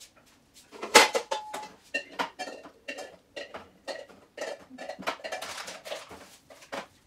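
Dishes and containers being handled: a quick run of knocks and clinks, some ringing briefly, with the sharpest clink about a second in.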